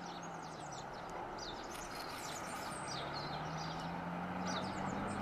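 Faint outdoor ambience of birds chirping: many short, high notes scattered throughout, over a steady low hum.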